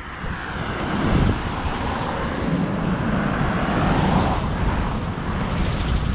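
A car driving past on the road: a smooth rush of tyre and engine noise that swells, is loudest about four seconds in, then fades away.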